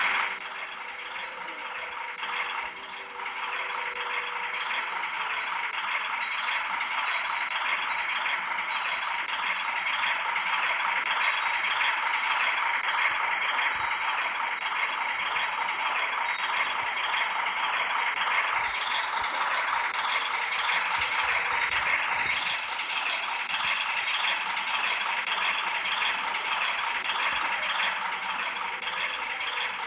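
Freight train rolling past: a steady metallic rattle and clatter from the cars and wheels, holding at a constant level.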